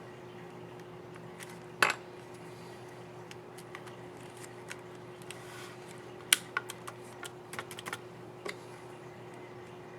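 Sharp plastic clicks from an Asus Q505UA laptop keyboard key, its keycap and scissor mechanism being snapped into place. There is one loud click about two seconds in, another past six seconds, then a quick run of smaller clicks, over a faint steady hum.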